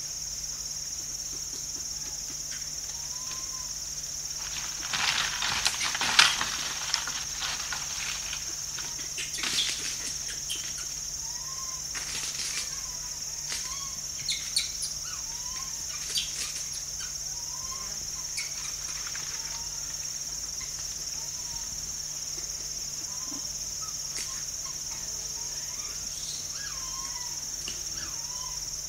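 A group of rhesus macaques feeding and scuffling: bursts of rustling and scuffles, the loudest about six seconds in and fewer after the middle. Short high whines from young monkeys repeat every second or so, over a steady high insect buzz.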